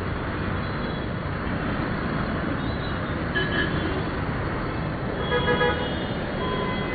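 Steady noise of slow, jammed road traffic, with motorcycle and car engines running. Vehicle horns honk briefly a little past the middle, again in a longer, louder burst around five seconds in, and faintly once more near the end.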